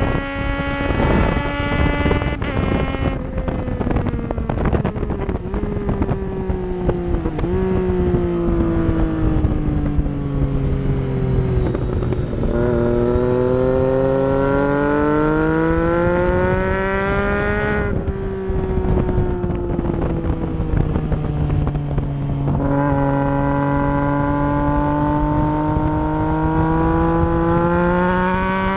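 2012 Triumph Street Triple's three-cylinder engine on track, heard onboard over steady wind rush. The engine note falls for about the first twelve seconds with a couple of brief jumps, then climbs hard. It drops sharply at a gear change about 18 seconds in and builds again over the last few seconds.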